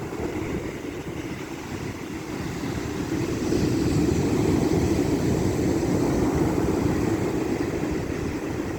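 Wind buffeting the microphone as a low, steady rumble that swells about three seconds in, with sea surf washing underneath.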